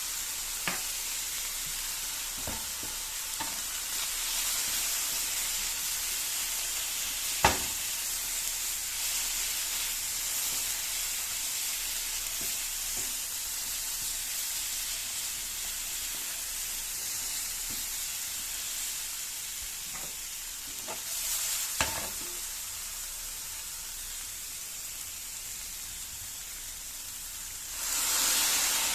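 Food frying in oil in a pan, sizzling steadily, with a few sharp clicks of a utensil against the pan as it is stirred. Near the end the sizzle swells suddenly louder.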